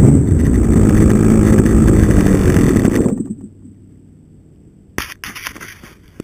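Glow engine of a .40-size RC trainer airplane running at low throttle as the plane rolls over grass, then cutting out abruptly about three seconds in. A sharp click and a few brief rustles follow near the end.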